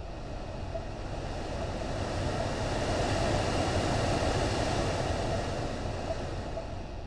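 Ford Bronco Sport's air-conditioning running, a steady low hum with a rushing noise that swells to its loudest about halfway through and fades again, and a few faint ticks near the start and end.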